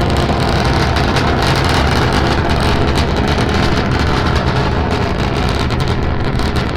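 Starship SN9's three Raptor rocket engines burning in flight: a loud, steady, dense rumble heaviest in the bass.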